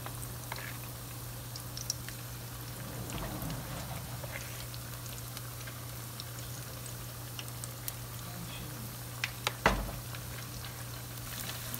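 Potato and onion gram-flour pakoras deep-frying in hot oil, bubbling with a steady hiss and scattered small crackles over a steady low hum. A couple of sharper knocks about nine and a half seconds in are the loudest sounds.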